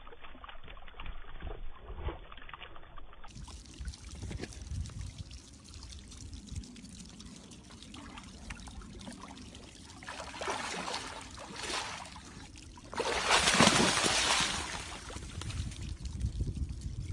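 Water sloshing and splashing in a fountain pool as a tiger swims in it. A loud rush of splashing comes about three-quarters of the way through.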